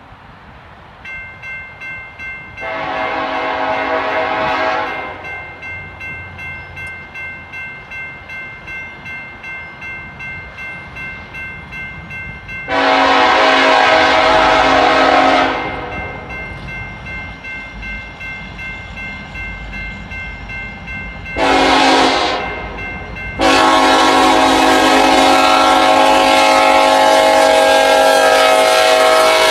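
Union Pacific diesel locomotive air horn blowing the grade-crossing signal: long, long, short, then a final long blast that is still sounding at the end. A bell rings steadily underneath throughout.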